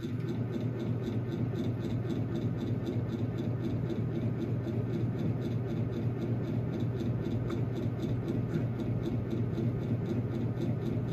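Antique Emerson Fern Leaf ceiling fan running at its single speed: a steady motor hum with the rush of air from its blades, and a faint ticking about three to four times a second. Its warped blades run off balance.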